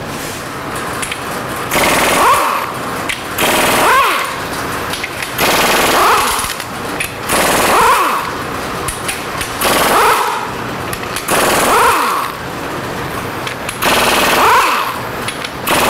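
Impact wrench hammering in repeated bursts on the seized Case-IH 695 engine, about seven bursts of a second or so each, roughly two seconds apart, with the motor's pitch sweeping up and down in each.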